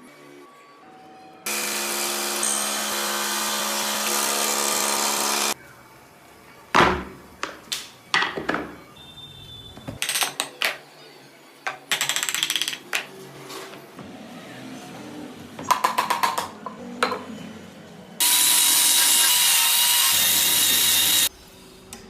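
Woodworking tools on wood. A power tool's motor runs steadily for about four seconds. Then comes a string of sharp knocks and short rasping strokes. Near the end a higher-pitched power tool runs for about three seconds.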